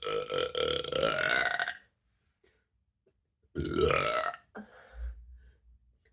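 A woman belching loudly after drinking ginger ale. The first belch lasts nearly two seconds, and a second, rising in pitch, comes about three and a half seconds in, followed by softer ones. Some of the gas is still trapped.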